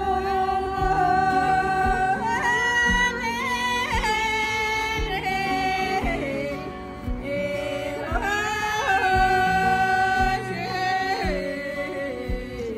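Tibetan song with a singer holding long, wavering notes that step up and down, over instrumental accompaniment with a steady beat.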